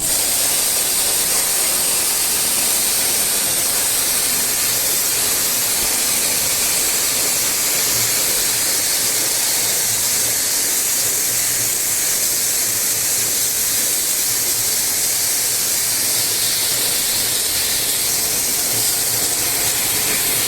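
Steady hiss of a high-pressure water spray washing an air conditioner, unbroken throughout, with a faint low hum that comes and goes underneath.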